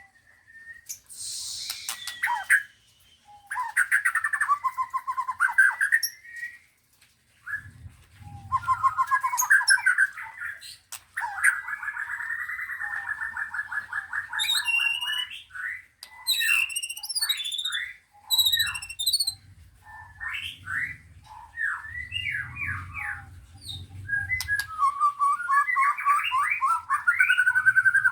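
Several caged songbirds singing at once, in varied phrases of chirps and whistles. They include a long fast trill about halfway through, a run of separate sweeping whistled notes after it, and another fast trill near the end. A faint low hum sits underneath at times.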